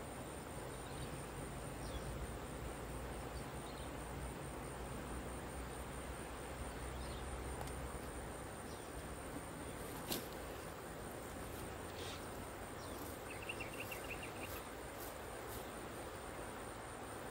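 Steady high-pitched insect drone over a faint low rumble, with one sharp click about ten seconds in and a brief rapid trill a few seconds later.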